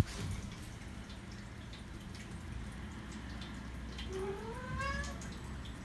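A cat hiccups once, sharply, right at the start, then gives one long rising meow about four seconds in.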